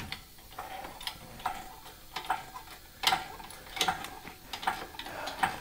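Steel engine hoist and its chain being loaded to pull on a stuck car seat: light, irregular metallic clicks and ticks, about two a second.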